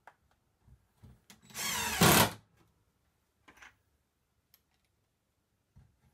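Cordless drill-driver running in one short burst about a second and a half in, getting louder near its end, with a few faint handling clicks before and after.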